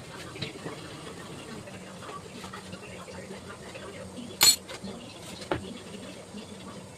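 Metal kitchen utensils clinking and knocking, with one sharp ringing clang about halfway through and a smaller knock a second later.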